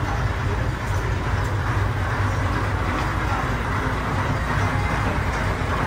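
Passenger ferry's engine running, a steady low rumble.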